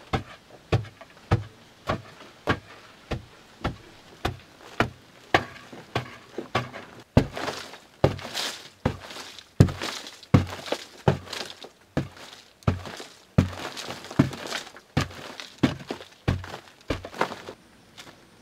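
Hand digging tool chopping into packed earth in a steady rhythm, one dull thud a little more than every half second, with loose soil rustling down between some of the strokes.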